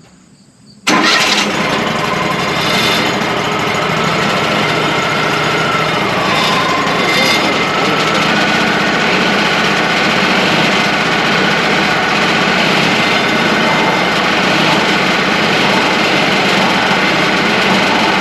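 Wood-Mizer LT35 portable band sawmill running and sawing a white pine log, a thin cut to square one face of a beam. The loud, steady noise starts suddenly about a second in. Its whining tone dips briefly about six seconds in, then recovers.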